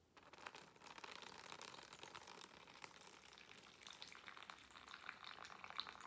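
Water pouring from a small cow-shaped pitcher into a plastic zipper bag: a faint, steady trickling splash.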